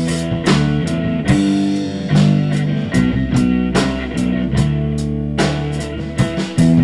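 Live rock band playing: guitar over a drum kit, with steady drum hits.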